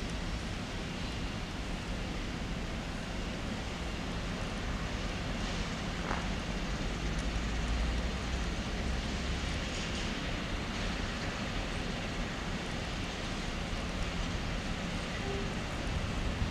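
Distant diesel shunting locomotive running with a steady low engine hum and rumble as it hauls a tank wagon slowly along the track.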